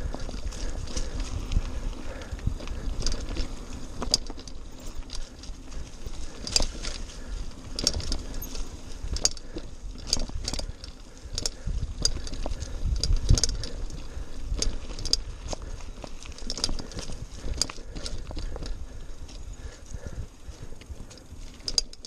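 Mountain bike riding over rough dirt singletrack: a steady low rumble of tyres and bumps, with many irregular metallic clicks and rattles from the chain and bike parts as it jolts over the ground.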